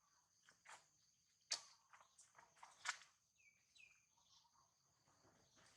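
Faint outdoor ambience: a steady, high-pitched drone of insects, broken by three sharp snaps or rustles (the loudest about a second and a half in and near three seconds), then two short falling chirps.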